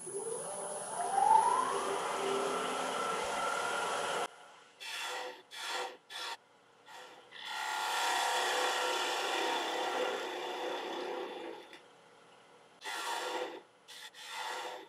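Wood lathe spinning up with a rising whine. A half-inch spindle gouge then cuts the end of the spinning ash blank to take off the tenon: a few short cuts and one longer cut of several seconds.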